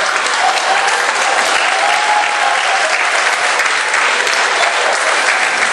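Audience applause: steady, dense clapping from a large crowd that holds the same level throughout.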